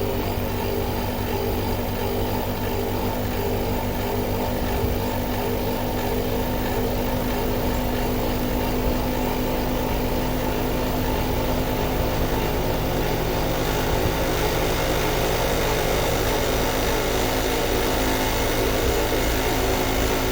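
American Standard inverter compressor and its outdoor unit running steadily: a continuous hum with several steady tones over a fan-like noise, shifting slightly about 13 seconds in.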